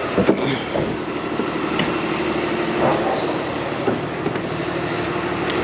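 Steady drone of running machinery with a constant low hum, and a few light knocks.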